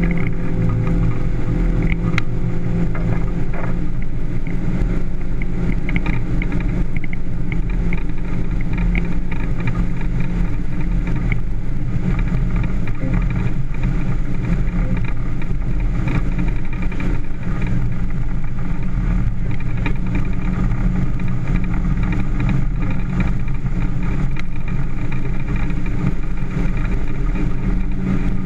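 Motorboat engine running steadily, a continuous low drone without letting up.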